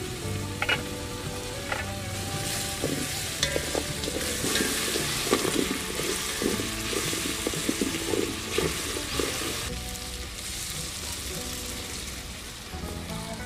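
Tomatoes and garlic sizzling in a metal cooking pot while a wooden spoon stirs them, knocking and scraping against the pot. The sizzle is strongest in the middle and eases off near the end.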